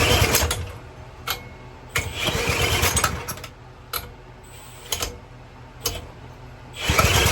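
3.75 HP Briggs & Stratton small engine on a pressure washer being spun over by a drill in three short bursts, sputtering without staying running on brake cleaner, with a few sharp clicks between the tries.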